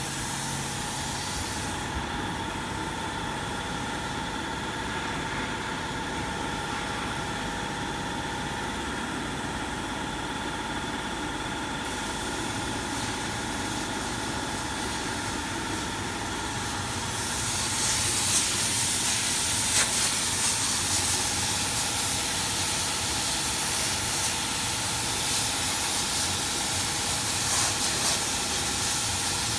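CO2 laser fabric cutting machine running: a steady hum with several whining tones under a hiss of air. After about seventeen seconds the hiss grows louder and brighter, with faint ticks.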